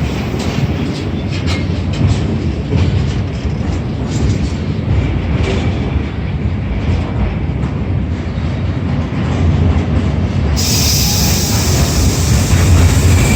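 A container freight train's wagons rolling past with a heavy rumble and the clicking of wheels over rail joints, as the train slows into the station. About three-quarters of the way through, a high, steady wheel squeal sets in and holds.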